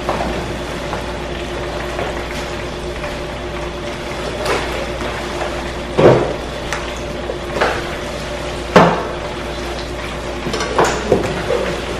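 A metal spoon stirring potato salad in a plastic mixing bowl, with scattered knocks and clatters against the bowl and counter. The loudest knocks come about six seconds in and again near nine, over a steady hum.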